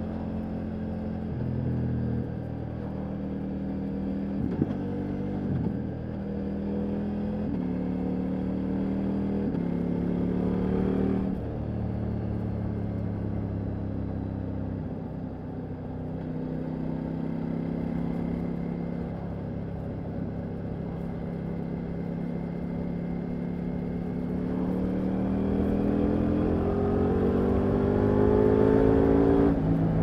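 Ducati Multistrada V4 Rally's 1158 cc V4 engine and exhaust under way, heard from the rider's seat. The engine pitch steps up and down several times in the first ten seconds, drops as the throttle closes about eleven seconds in and holds steady at cruise. From about 24 seconds it rises in one long, climbing pull as the bike accelerates hard.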